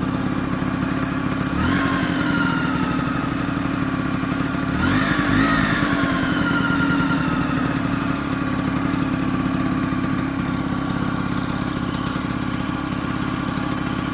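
Vespa PX scooter's two-stroke single-cylinder engine idling, revved briefly twice, about two seconds and five seconds in, each rev rising quickly and falling back to idle. It is the weird engine noise that the owner has heard since fitting a new clutch.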